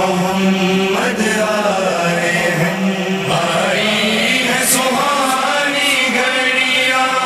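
Male voice chanting a manqabat, an Urdu devotional poem, in long drawn-out melodic notes.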